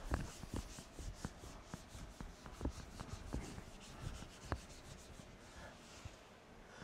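Whiteboard eraser wiping across a dry-erase board in quick, repeated back-and-forth strokes, faint.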